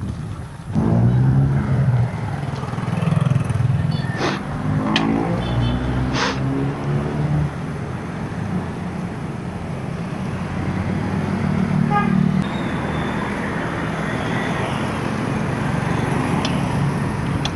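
Motorcycle engines passing close by, one speeding up with a rising pitch a few seconds in, over steady road and wind noise on the microphone.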